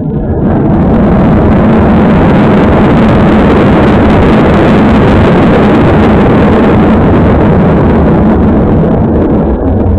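Loud, steady rushing roar inside an Airbus A330's cabin on landing: the engines and airframe on the rollout. It sets in about half a second in and eases off near the end, harsh through a spy pen's small microphone.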